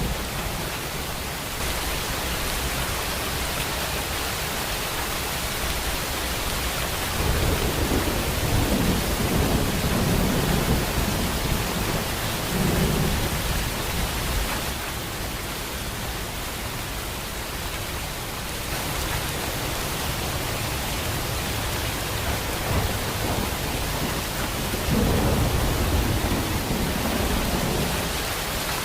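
Steady heavy rain falling, with thunder rumbling low in two long swells, a few seconds in and again near the end.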